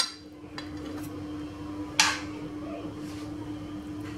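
Metal spatula clinking against a glass cake plate while cream is spread around the side of a cake: a few sharp clinks, the loudest about two seconds in, over a steady low hum.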